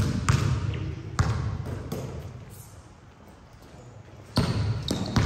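Basketball bouncing on the court: a few sharp bounces in the first second and a half, then it goes quieter, and the court noise rises again about four seconds in.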